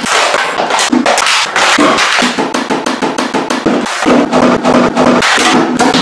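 Hands tapping, rubbing and crinkling a large empty clear plastic jug: a loud, dense run of plastic crackles and hollow knocks.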